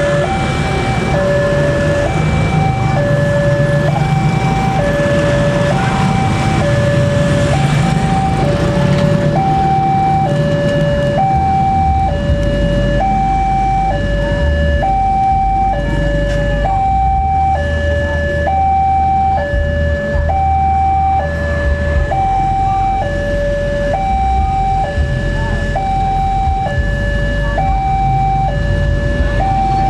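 Railroad level-crossing warning alarm sounding: an electronic two-tone chime alternating a lower and a higher note, about one low-high pair a second, warning that a train is approaching while the barrier is down.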